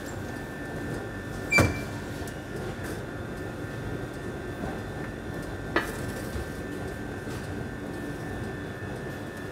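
Metal door of a commercial deck oven pulled open with one sharp clank, then a lighter knock as a ramekin is set down on the oven's stone floor, over a steady hum.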